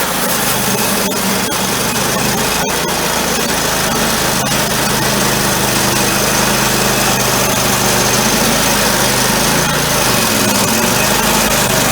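Engine-driven sawmill running steadily while milling a black walnut log.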